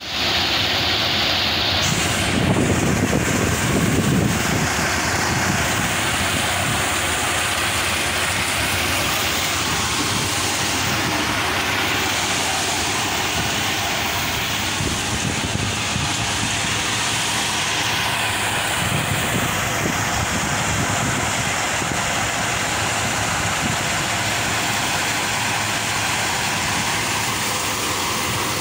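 Tractor-driven thresher (a ragi threshing machine) running steadily as it threshes horse gram plants. It makes a dense, continuous mechanical noise over the tractor's engine, a little louder for a couple of seconds near the start.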